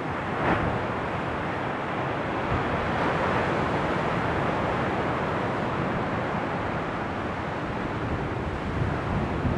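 Steady wind buffeting the microphone, mixed with the rush of sea surf.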